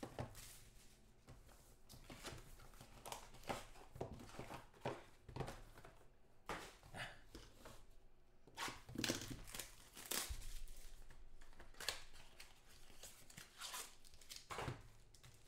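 Trading-card box and pack wrappers being torn open and crinkled by hand: irregular rustles and crackles.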